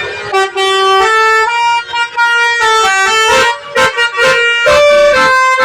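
Basuri musical bus horn (klakson telolet) playing a tune, its notes stepping up and down in pitch, some held and some quick and short.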